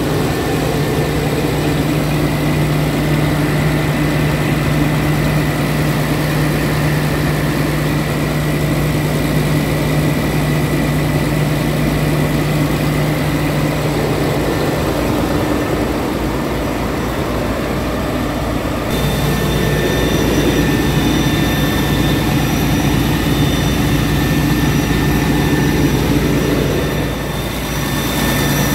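Scania R truck's diesel engine idling steadily, heard close up from the open engine bay.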